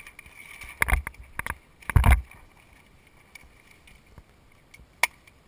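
Paper target crinkling and rustling in a few loud bursts as it is unfolded and handled, then a single sharp click from a hand stapler near the end.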